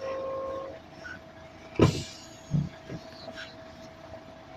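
Sounds inside a waiting vehicle's cab: a short steady electronic tone at the start, then a sharp knock and a dull thump a second later, with a few light clicks over a faint steady hum.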